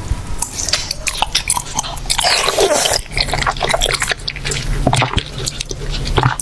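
Close-miked mukbang eating: a person biting and chewing food, a dense run of irregular crunchy clicks and snaps.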